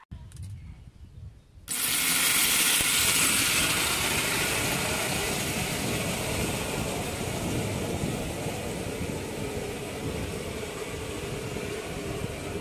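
Motor and chain drive of a homemade rope-twisting machine starting suddenly a little under two seconds in, then running steadily with a bright hiss and a steady hum while it twists strips of PET-bottle plastic into clothesline cord.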